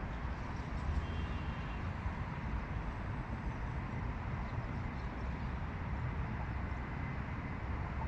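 Steady low background rumble with no clear bird calls.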